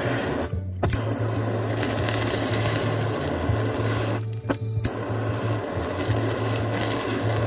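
Handheld butane kitchen torch flame hissing steadily as it sears a slice of pork. The flame cuts out twice, about half a second in and about four seconds in, and each time comes back with a sharp click.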